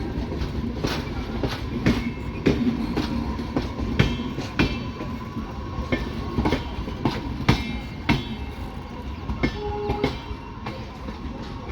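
Express passenger train's wheels clattering over rail joints: a run of sharp clacks about two a second over a steady rumble, dropping a little in loudness near the end.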